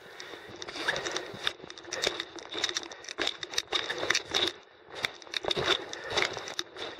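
Irregular crunching and rustling of a climber's footsteps and gear close to the microphone.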